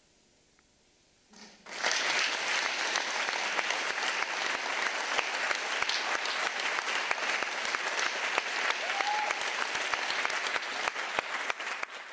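Theatre audience applauding, breaking out suddenly about a second and a half in after near silence and holding steady.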